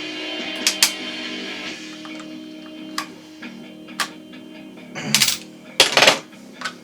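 Guitar music plays steadily, over a series of sharp clicks and knocks from the shotgun's parts being handled, the loudest a cluster about five to six seconds in.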